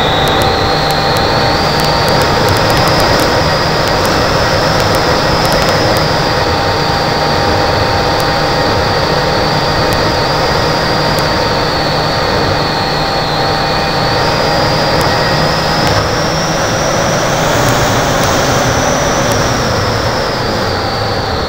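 The motor of a scratch-built foam RC Vulcan model whining in flight, heard through a keychain camera taped to its nose, over a steady rush of wind. The whine climbs in pitch in the first seconds, dips a little past the middle, climbs to its highest pitch about three-quarters through, then falls away near the end.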